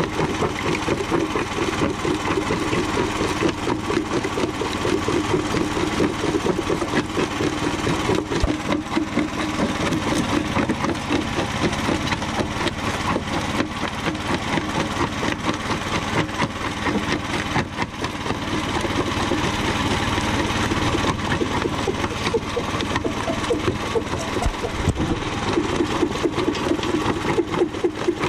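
Homemade jaw crusher running under a small engine, its swinging jaw working in a fast, even rhythm as it grinds and cracks chunks of concrete between the jaw plates, with an occasional sharper crack.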